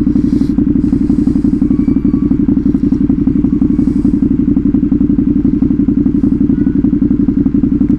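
Motorcycle with a loud exhaust running steadily at low, even engine speed, its firing pulses a rapid even beat with no change in pitch.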